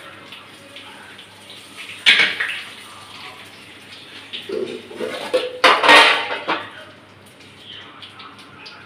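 Dishes and utensils clattering at a kitchen stove while a cumin and curry-leaf tadka fries in hot oil in a small karahi. There is a sudden knock about two seconds in and a louder clatter around six seconds.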